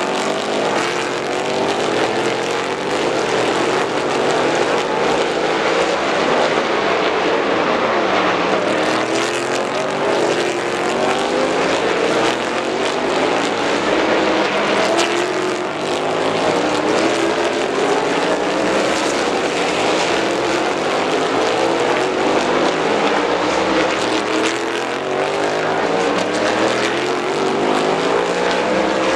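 Several race cars' engines revving hard through the gears, overlapping, their pitch climbing with each upshift and dropping between shifts.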